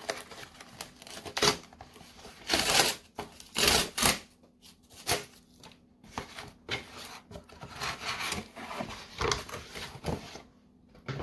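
A cardboard mailer box being torn open by hand: irregular bursts of ripping, rubbing and scraping cardboard, loudest about three and four seconds in.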